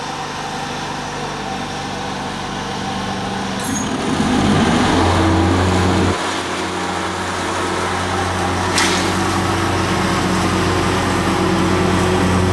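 Leaf vacuum's motor running loud and steady, rising in speed and level about four seconds in, then holding at the higher speed. Two brief sharp ticks cut through it.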